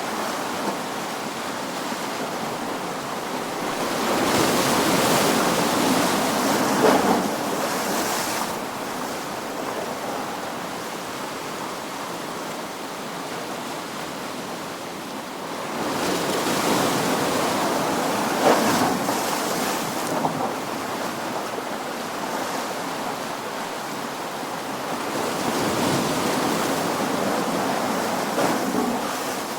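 Ocean waves breaking and washing up on a shore, in slow surges: three waves swell up and crash, about 4 s, 16 s and 25 s in, each hissing for a few seconds before the wash settles back.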